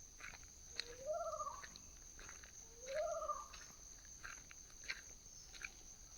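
An unidentified bird giving a loud call twice, about two seconds apart. Each call is short and wavering, rising then falling in pitch.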